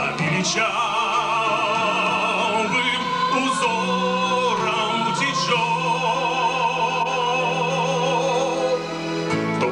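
Largely female choir singing in unison and harmony, holding long notes with vibrato.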